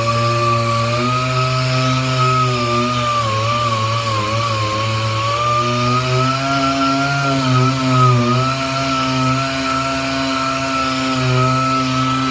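Dual-action (DA) sander running steadily on the steel quarter panel, stripping it down to bare metal, its pitch wavering slightly as it is pressed and moved.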